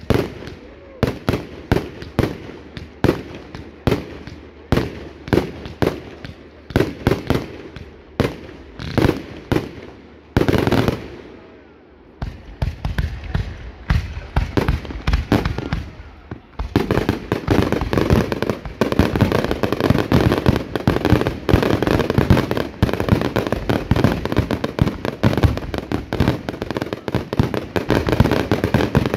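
Fireworks going off: a rapid string of sharp bangs, about two a second, then a bigger blast with a long echoing tail about ten seconds in. From about seventeen seconds on the bangs merge into a dense, continuous crackling barrage.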